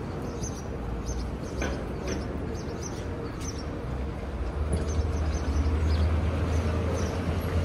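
City street ambience: a low traffic rumble that grows louder from about halfway through, with faint short high ticks scattered over it.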